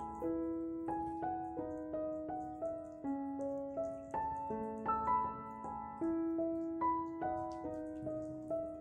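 Background piano music: a slow melody of single struck notes, about two to three a second, each ringing on until the next.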